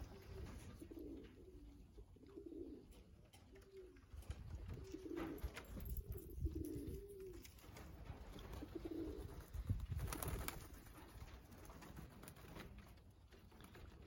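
Racing pigeons cooing: a run of low, soft coos every second or two through the first ten seconds, then quieter.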